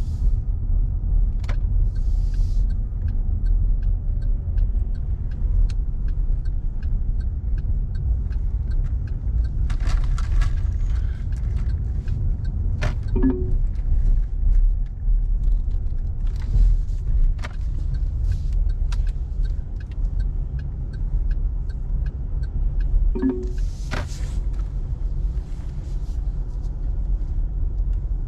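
A car driving, heard from inside the cabin: a steady low rumble of engine and road noise, with scattered small clicks and a few short hisses.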